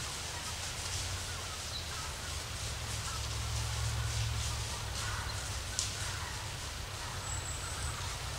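Woodland ambience: a steady low rumble, faint crackles and distant bird calls, with a brief high whistle near the end.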